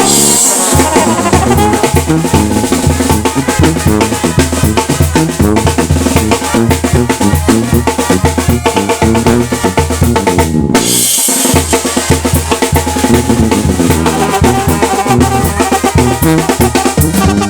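Mexican banda music: a brass band playing over a steady drum beat and low bass line. The music stops briefly about eleven seconds in and comes back in with a crash.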